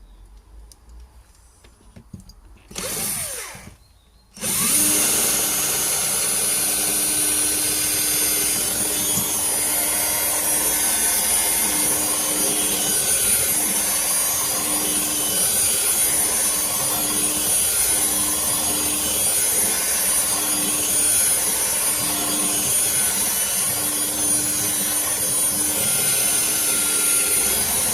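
Electric drill spinning a diamond-tipped burr against a wetted glass jar, grinding into the glass. A short burst about 3 seconds in, then steady drilling from about 4.5 seconds on, with an even motor hum under the grinding.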